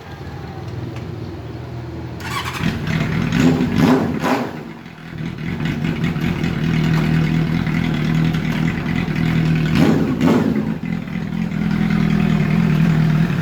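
Honda CB400 Hyper VTEC Spec 1 inline-four motorcycle engine running, with quick throttle blips a few seconds in and again later, settling to a steady idle between and after them.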